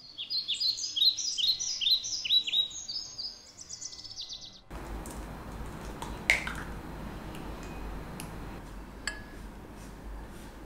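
A songbird singing a fast run of short, falling chirps, several a second, for about four and a half seconds. The birdsong then cuts off abruptly to a steady background hiss with a low hum, broken by a few faint clicks and a single chirp.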